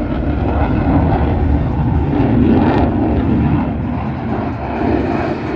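Jet aircraft engine noise from a flying military jet: a loud, steady rumble that swells slightly midway and eases a little near the end.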